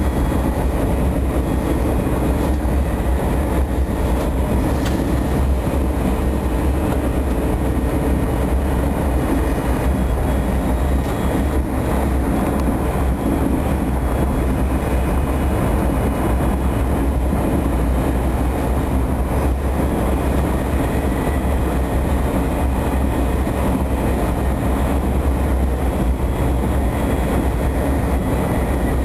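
Passenger train running at speed, heard from inside the carriage: a steady low rumble with an even rushing noise over it.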